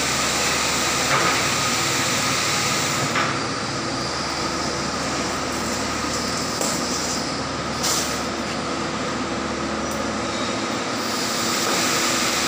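Large Cummins standby diesel generator set, rated about 2 MW, running steadily: a loud, even roar with a constant hum, a little quieter in the middle of the stretch.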